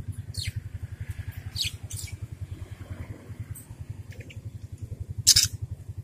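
Budgerigars chirping: short sharp calls about half a second, a second and a half and two seconds in, and a much louder one near the end. Under them an engine runs steadily with a rapid low throb.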